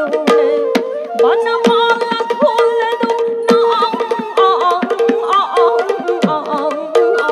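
Live Manipuri classical music: rapid hand-drum strokes under singing and flute, with a steady held note that stops and restarts every second or so.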